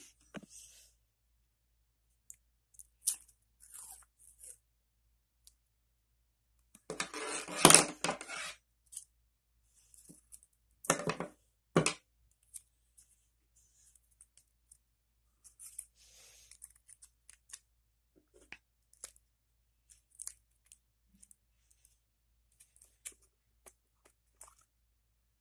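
Masking tape pulled off its roll in one loud tearing rasp lasting about a second and a half, followed a few seconds later by two sharp snips of scissors. Small clicks and rustles of handled plastic and tape run between them.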